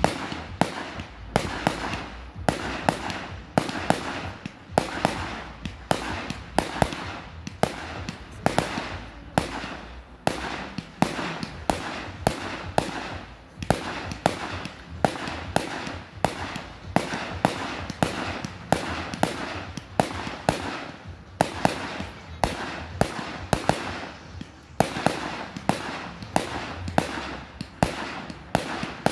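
Aerial fireworks launched from the ground and bursting overhead in rapid succession: a continuous string of sharp bangs, roughly one or two a second, with crackling between them.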